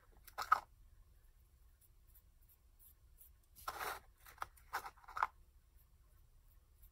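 Fingertip scraping and tapping in a small clear plastic cup of UV resin: a few short scratchy sounds, one just after the start and a cluster about four to five seconds in.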